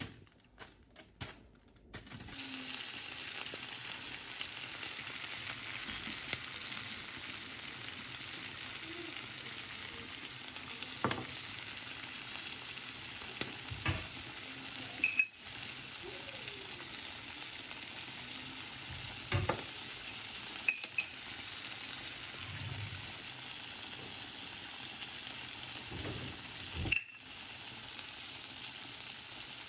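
Pieces of liver frying in oil in a nonstick pan: a steady sizzle starting about two seconds in, with a few short knocks now and then.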